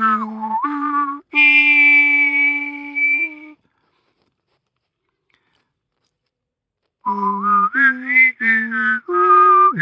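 Railway station chime melodies imitated by mouth with whistling and voice: a run of short stepped notes and a long held note, a break of silence a few seconds in, then another chime tune.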